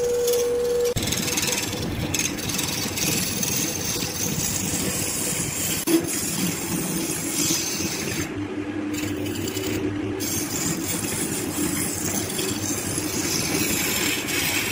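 Wood lathe running, a steady mechanical noise with a hiss over it as the spinning workpiece is worked; a steady hum cuts off about a second in.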